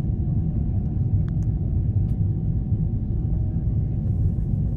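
Steady low rumble of a Boeing 777-300ER's GE90 jet engines heard inside the passenger cabin during the climb after takeoff, with a faint steady whine above it.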